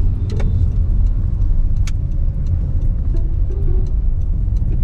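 Steady low rumble of a car driving, heard from inside the cabin, with a couple of sharp clicks.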